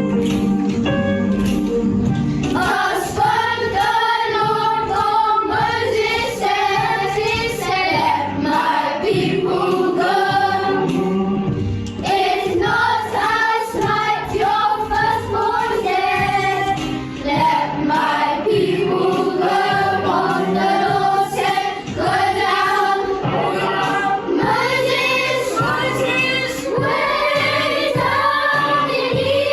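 A class of children singing a song together over instrumental accompaniment, the voices coming in about two seconds in after a short instrumental passage.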